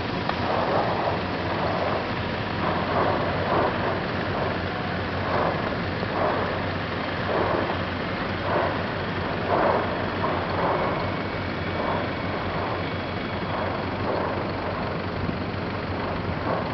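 Lava fountains at an erupting volcanic vent: a steady rushing roar with irregular gushing surges about once a second as spatter is blasted out.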